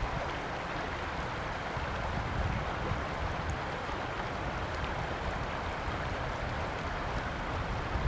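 River water rushing over rocks in rapids, a steady rush with no pauses.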